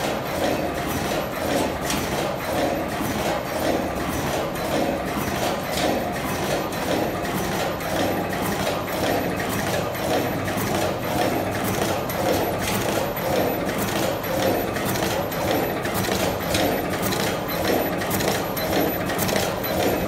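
HR-602 automatic double-end wire crimping machine running, its mechanism clacking in a fast, even rhythm over a steady mechanical hum.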